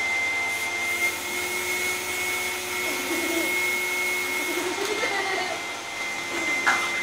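Vacuum cleaner running steadily, its motor giving a constant high whine over an even rushing noise.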